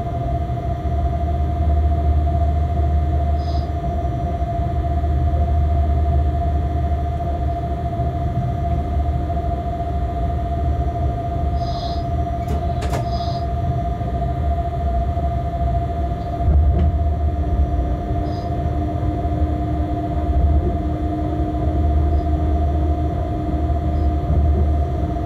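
A locomotive running light along the track: a steady low rumble from the wheels and running gear that swells and eases, with a constant hum over it. A few short high chirps and a pair of sharp clicks about halfway through.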